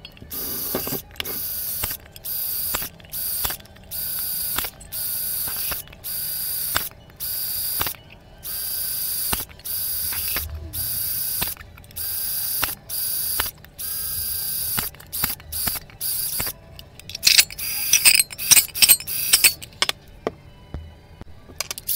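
Electric drill run in short bursts, about one a second, each a steady whine as the bit bores a small hole through the thin metal side of a tuna can. For a few seconds near the end the whine gives way to a louder stretch of sharp, irregular clattering.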